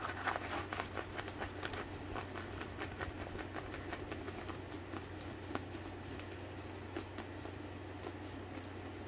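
Light crackling and crinkling from the thin plastic film on a diamond painting canvas as it is handled and rolled flat. The crackles are thickest in the first couple of seconds, then scattered, over a low steady hum.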